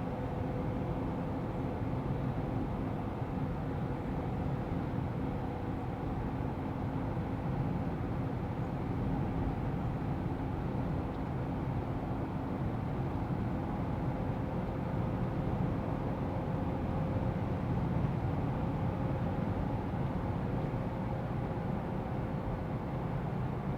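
GAZ Sobol van driving at a steady cruise, heard from inside the cabin. The engine and tyre/road noise run evenly, with a constant low hum.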